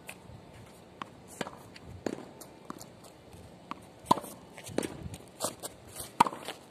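Tennis ball bouncing on a hard court and being struck by a racket: a series of sharp, irregular knocks, the two loudest about four and six seconds in, mixed with footsteps on the court.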